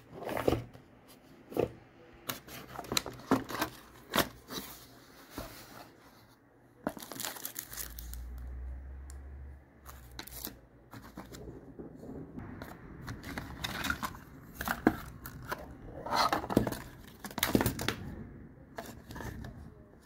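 Cardboard packaging being opened and handled: box flaps scraping and tearing, plastic bags crinkling, and scattered knocks as the parts are taken out.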